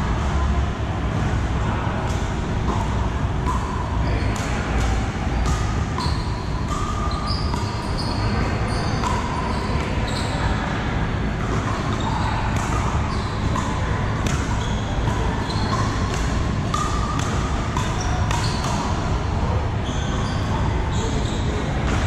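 Pickleball paddles striking hollow plastic balls: many sharp pops throughout, some with a short ring, overlapping from this and neighbouring courts in play.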